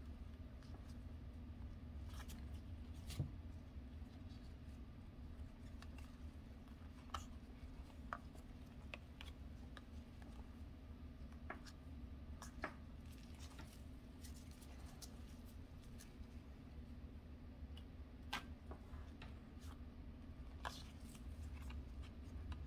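Faint, irregular light ticks and flicks of glossy 2020 Panini Absolute football trading cards being slid and flipped over one another in a gloved hand, a dozen or so over the stretch.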